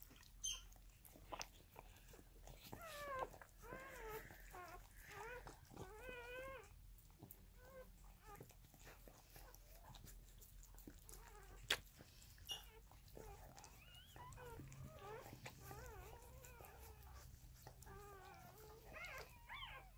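Faint, wavering high-pitched cries of newborn corgi puppies, in two stretches of a few seconds each, with a few soft clicks and a sharp click a little after halfway.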